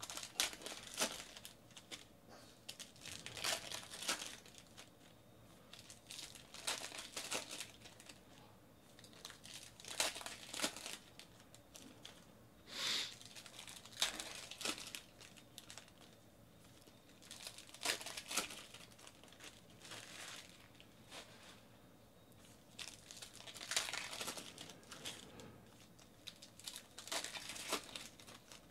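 Foil wrappers of football trading-card packs crinkling and tearing as they are opened by hand, in repeated bursts every few seconds.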